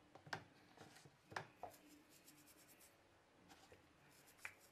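Near silence, broken by a few faint clicks and some light rustling.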